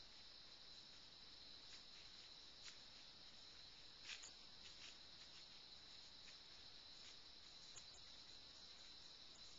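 Faint, steady chorus of crickets, one continuous high trill, with a few soft clicks, the loudest about four seconds in.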